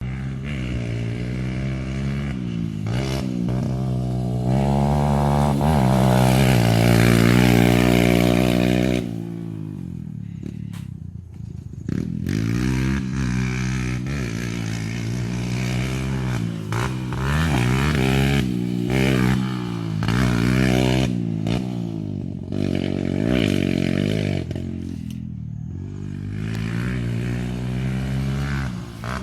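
Kawasaki KLX140L dirt bike's single-cylinder four-stroke engine revving up and down while being ridden, its pitch climbing under throttle and falling back again and again. The longest and loudest climb runs to about nine seconds in, where the throttle is shut and the sound drops off suddenly.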